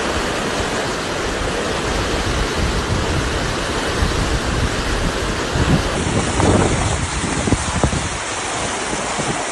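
Loud, steady rushing noise of storm wind and water. About six seconds in it changes to a more uneven rush with short surges.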